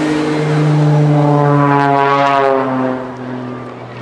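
Jet-assisted Pitts Special aerobatic biplane flying past with a steady engine and propeller drone. The drone swells about two seconds in, then fades while dropping slightly in pitch as it passes.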